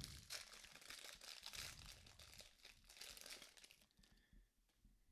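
Crinkling of a plastic trading-card wrapper being handled and pulled open, fading out about four seconds in, followed by a few faint clicks of cards being handled.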